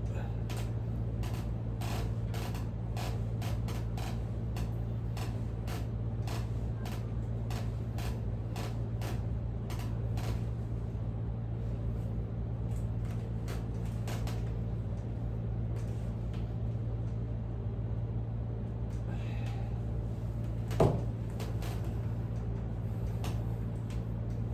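Hands massaging a man's back and shoulder blade: many short, irregular clicks and taps from the skin and body being worked, over a steady low hum. One louder knock comes near the end.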